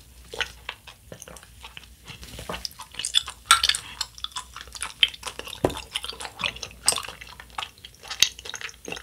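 Close-miked wet mouth sounds: bubble tea sucked up through a wide straw, then tapioca pearls chewed, with many small irregular wet clicks.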